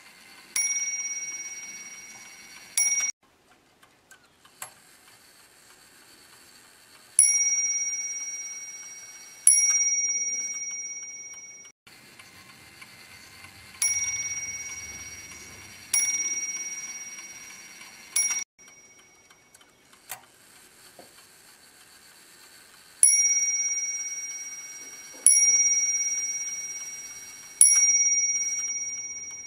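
A Roman striking clock's bell being struck in groups: two blows, two blows, three blows, then three more near the end, each ringing out and fading, with the ringing of each group stopped abruptly.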